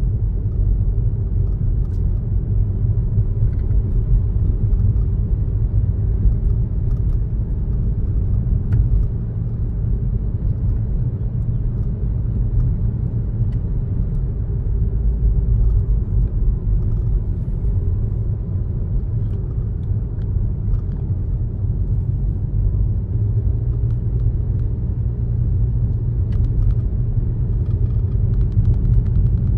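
A car driving at a steady pace: a steady low rumble of engine and road noise, with a few faint light ticks.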